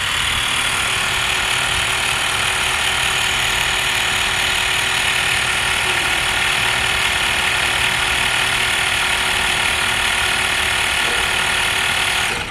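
Xiaomi Mi portable electric air compressor running steadily, a loud even motor-and-piston buzz, as it inflates a bicycle inner tube that is not fitted in a tyre. It cuts off abruptly at the very end.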